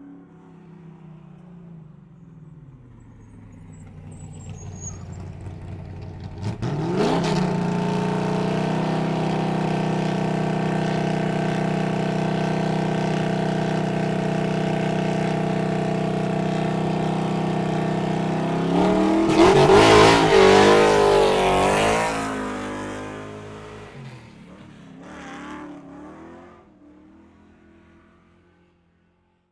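Vehicle engine sound effect. A faint engine note drops in pitch, then the engine surges, rising quickly in pitch to a steady high run. Near the two-thirds mark it gets louder and the pitch wavers up and down, then it fades away.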